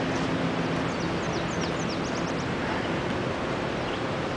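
Steady rushing noise with a faint low hum. About a second in, a bird sings a quick run of high, falling chirps.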